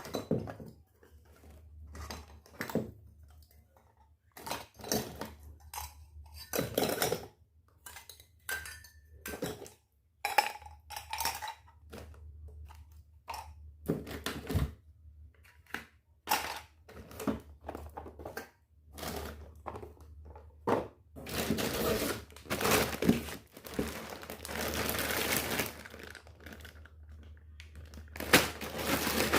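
Small toy kitchen pieces clicking and knocking against each other as they are handled, one light knock after another. From about two-thirds of the way in there are several seconds of crinkling and tearing packaging, and a short burst of it again near the end.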